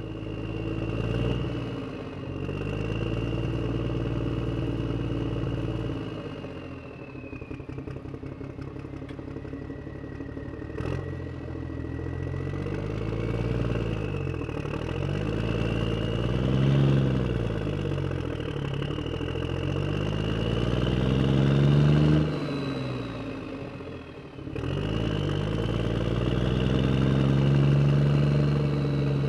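Radio-controlled toy construction vehicle running, its electric motor and gears whining with an engine-like hum that rises and falls in pitch as the throttle changes. It drops off briefly a little past the middle, then cuts out and picks up again near the end.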